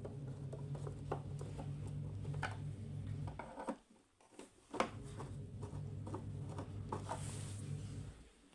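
Hand screwdriver turning screws into a subwoofer cabinet to fasten the woofer, with scattered small clicks and creaks of the screws and tool. A steady low hum sits under it and cuts out briefly a little past the middle.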